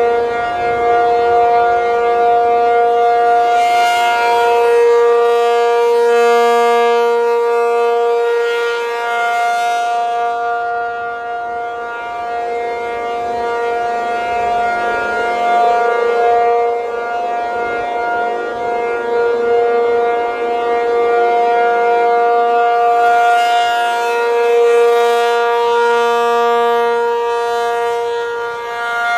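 Large rotating outdoor warning siren sounding a steady, loud wail at constant pitch, swelling and fading as the horn turns toward and away, loudest about a fifth of the way in and again near the end. The recorder is overloaded, which makes the sound harsh.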